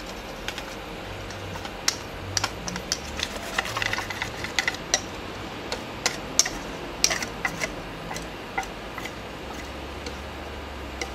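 Hot coconut oil in a non-stick frying pan crackling and spitting as pancake batter is poured in: irregular sharp pops over a faint steady low hum.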